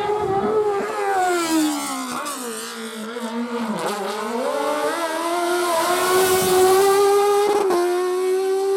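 Single-seater open-wheel race car's engine running at high revs. Its pitch sags to a low about halfway through as it slows for a corner, then climbs back and holds high as it accelerates, growing louder as it nears.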